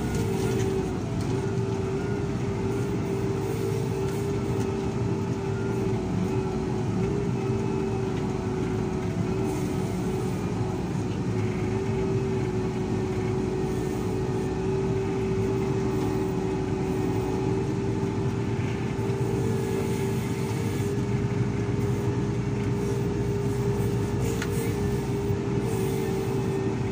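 SDLG wheel loader's diesel engine running steadily as the machine drives, a constant low drone with a steady whine over it, heard close up from on board.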